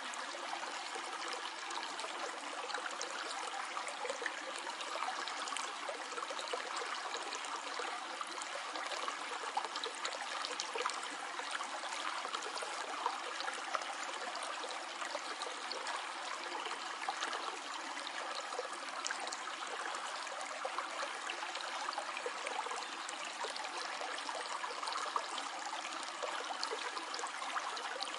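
A stream flowing steadily, water trickling and gurgling, with many small brief splashes in the rushing.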